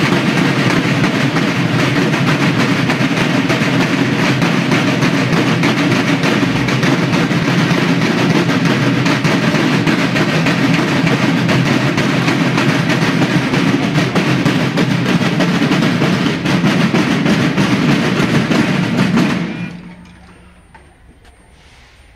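A children's school drum corps (banda de guerra) of snare drums playing together, a loud, continuous march beat that stops sharply near the end.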